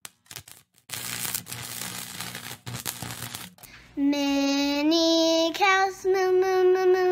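A child singing a simple tune in long held notes, starting about four seconds in after a few seconds of low background noise.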